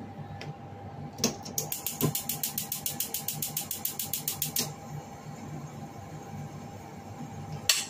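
Gas stove burner's electric igniter clicking rapidly, about eight clicks a second for some three seconds, stopping once the burner lights. A single sharp knock near the end.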